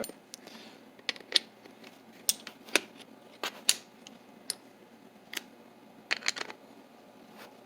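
Dorma M9953 mortise lock being worked by hand to test it: a series of sharp metal clicks and snaps, some in quick pairs and clusters, as its bolts and internal levers move.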